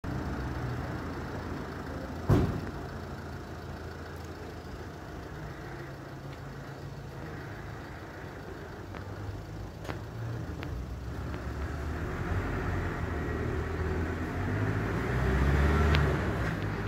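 Outdoor street ambience: a steady low rumble of traffic-like noise that swells near the end, with one sharp knock about two seconds in.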